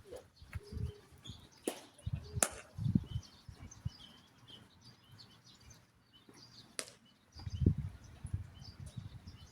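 Outdoor ball-field sound: three sharp smacks, two close together about two seconds in and one near seven seconds, over low rumbling thumps and faint bird chirps.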